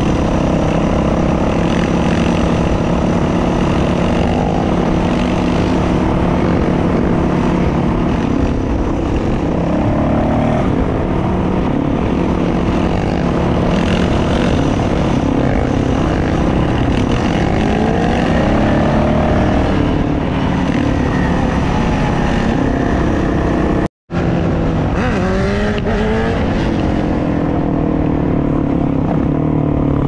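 Dirt bike engines running at speed, the engine note rising and falling with throttle and gear changes, over steady wind and road noise. The sound drops out for a moment about two-thirds of the way through.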